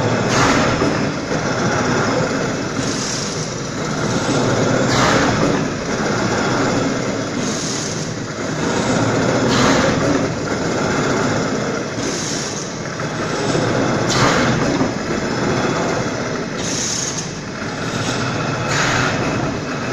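Horizontal veneer slicing machine running and slicing a log. It makes a steady mechanical noise that swells with each stroke of the knife carriage, about one stroke every two seconds.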